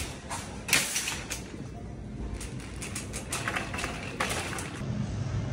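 Metal wire shopping cart clanking and rattling as it is pulled free of the cart row and pushed over a tiled floor, with one loud clank about three-quarters of a second in and further bursts of rattling after.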